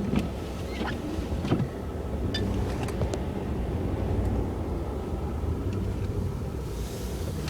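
A car engine running steadily, a low rumble, with a few short clicks and knocks in the first few seconds.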